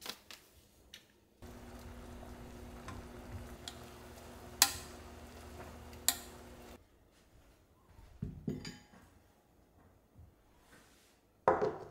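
A wooden spoon stirs vegetables in a stainless steel pot, with two sharp clinks against the pot over a steady low hum. Later come a few light knocks of dishes, then a louder knock near the end.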